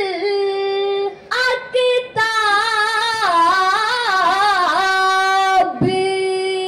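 A boy's high voice sings an Arabic devotional verse of daf muttu slowly and without drums, holding long ornamented notes with short breaks for breath.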